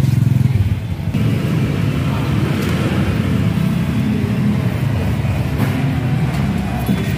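Motorcycle engine of a tricycle running steadily, heard from inside its passenger sidecar, a little louder in the first second.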